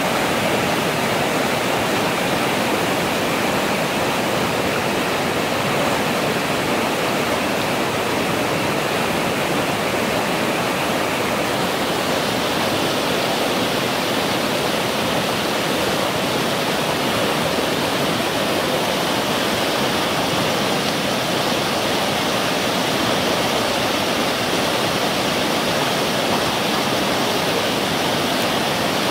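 Fast-flowing brown floodwater in a swollen river, rushing and churning over rapids in a steady, unbroken noise.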